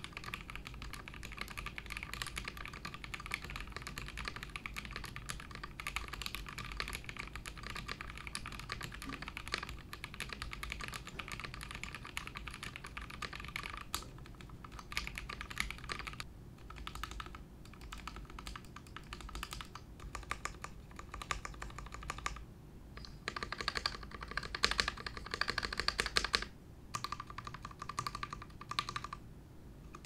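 Mechanical keyboard with Gateron SMD Yellow linear switches fitted with light 50 g TX 14 mm short springs, being typed on. Fast, continuous key clicking gives way about halfway through to shorter spurts of keypresses with brief pauses between them.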